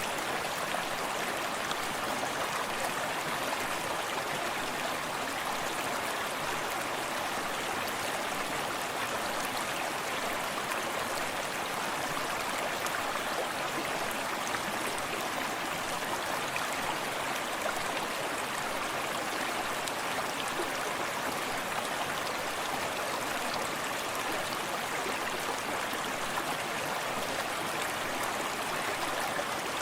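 Forest stream running steadily, water rushing and splashing over rocks.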